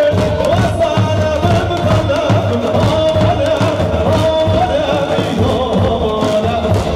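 Live Kurdish wedding dance music: a davul bass drum beating steadily about twice a second under a loud melody of long, wavering, ornamented notes.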